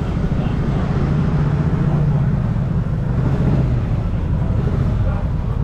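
An engine running steadily, a low hum that grows a little stronger in the middle.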